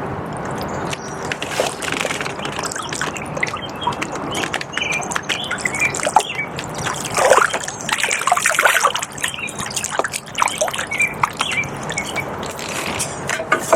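Flooded river water rushing steadily, with water splashing and dripping over it, loudest about halfway through.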